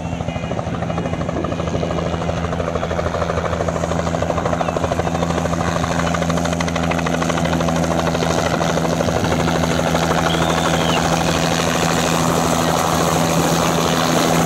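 Bell 407 helicopter's steady engine hum and fast rotor chop from its four-blade main rotor, growing steadily louder.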